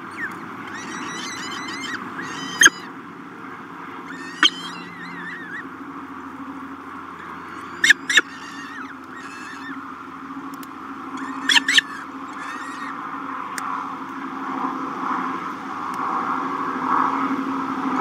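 Peregrine falcons calling in a nest box: a scatter of short, sharp, high calls, a few of them loud and two coming in quick pairs, with fainter wavering calls between. A steady hum runs underneath.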